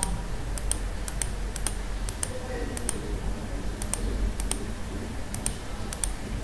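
Computer mouse button clicking at an uneven pace, about one to two clicks a second, each a quick press-and-release pair, over a low steady hum.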